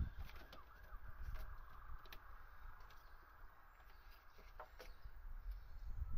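Faint clicks and handling noise from the BMW M5's engine control unit (DME) and its plastic wiring connectors being moved about in the engine bay, over a low rumble. A faint warbling sound that rises and falls is heard in the distance during the first second.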